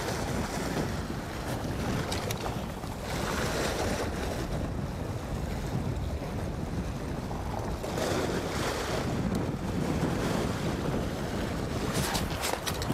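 Strong wind buffeting the microphone over surf washing against a rocky shore, swelling and easing in gusts. A few sharp clicks near the end.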